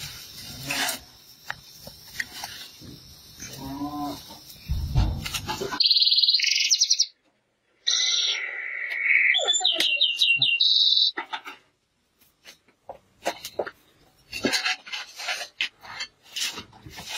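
A canary singing in bright repeated trills and chirp phrases for about five seconds in the middle; this is the loudest sound. Scattered clicks and knocks of pots being handled at a wood-fired stove come before and after it.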